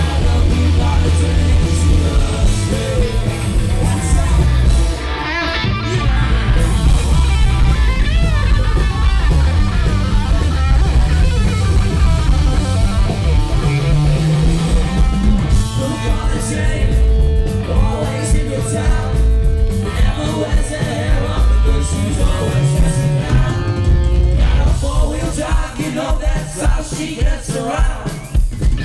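Live rock band playing loud rock and roll: electric guitar lead with bending notes over bass and drums, and a singing voice at times.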